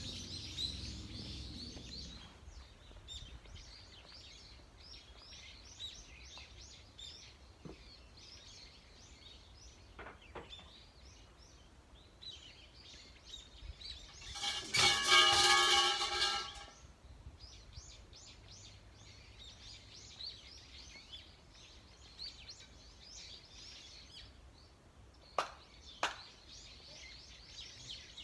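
Shrine suzu bells shaken on their bell rope, jangling loudly for about two seconds midway. Near the end come two sharp hand claps about two-thirds of a second apart, the paired claps of Shinto prayer. Small birds chirp throughout.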